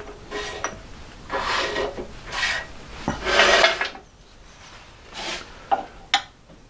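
Metal tools and lathe fittings being handled: rough scraping and clinking in three stretches, then a few short sharp knocks and clicks near the end.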